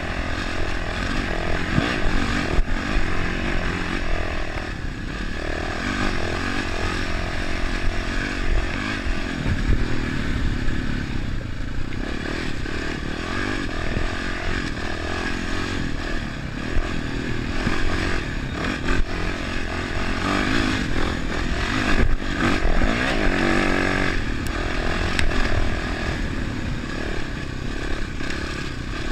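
Dirt bike engine running under way, its revs rising and falling, with rattling from the bike over rough ground, heard through a handlebar-mounted camera.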